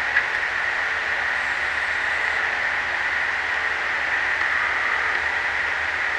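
Steady night chorus of the swamp forest: a dense, even high buzz, with one faint click just after the start.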